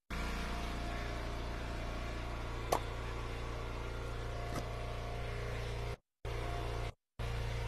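Engine of an Eastonmade Ultra hydraulic wood splitter running steadily, with a sharp crack about three seconds in and a fainter knock a couple of seconds later. The sound cuts out briefly two or three times near the end.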